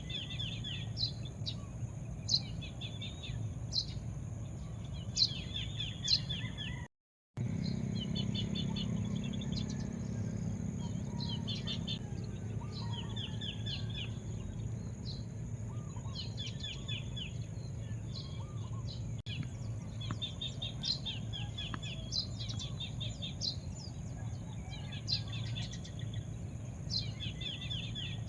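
Small birds chirping over and over in short, rapid rattling series, over a steady high-pitched drone and a low background rumble. The sound cuts out completely for a moment about seven seconds in.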